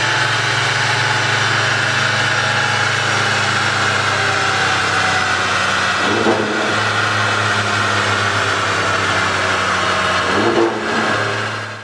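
Alfa Romeo Giulia Quadrifoglio's twin-turbo V6, fitted with a custom exhaust, running at a steady engine speed on a chassis dyno. The note briefly changes about six seconds in and again near the end, then cuts off suddenly.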